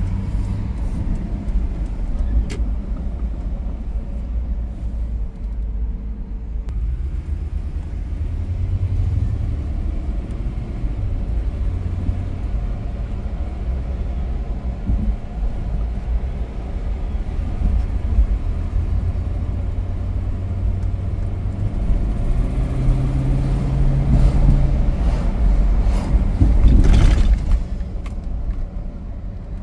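Car driving on a city street, heard from inside the cabin: a steady low rumble of engine and tyres, its pitch shifting as the car speeds up and slows, with a brief louder swell near the end.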